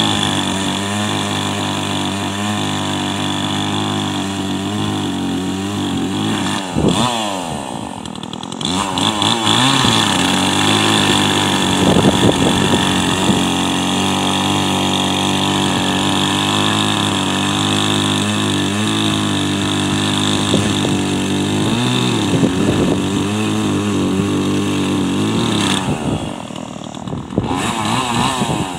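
Craftsman chainsaw cutting into a large white pine log, its engine running steadily under load. About a quarter of the way in the revs sag and climb back, and near the end they ease off again.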